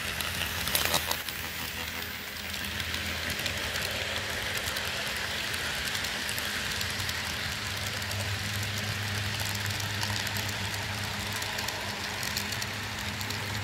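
Model freight train rolling close past on layout track: a steady rattling rumble of small wheels on rail, with frequent light clicks, that cuts off suddenly near the end.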